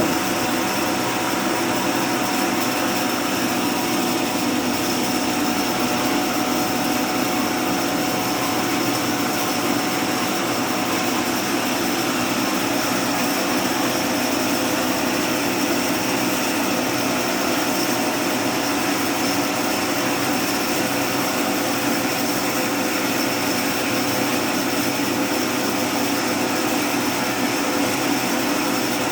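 Homemade mini sawmill running steadily, its motor giving a constant mechanical whirr with a steady hum that does not change in pitch or level.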